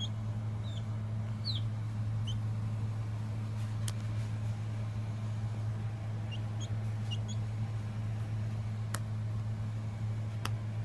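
A 3-week-old Ideal 236 chick peeping: short high falling peeps, four in the first couple of seconds and a quick cluster of about five a little past the middle, over a steady low hum. A few sharp clicks stand out, the last near the end.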